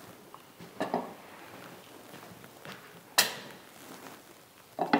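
Light clatter of things being handled and set down on a dining table: a couple of soft knocks about a second in and one sharp knock about three seconds in.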